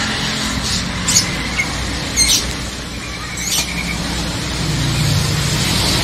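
A few short, high chirps from caged birds over a steady low traffic rumble. A motor vehicle grows louder near the end.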